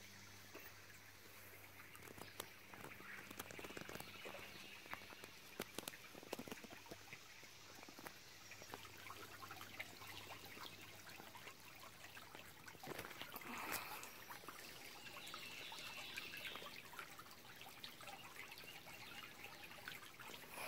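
Faint trickle of shallow creek water running over stones, with scattered small ticks.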